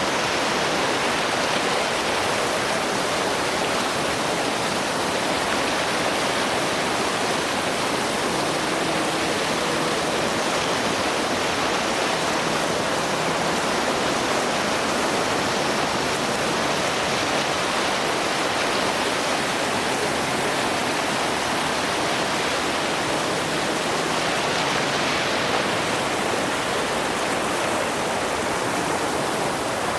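Heavy white water of the River Nile rushing over Makwanzi Falls: a loud, steady roar.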